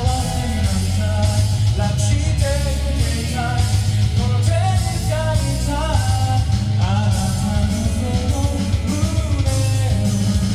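Karaoke backing track of a J-rock song with bass and guitar, with an amateur singer singing the melody over it.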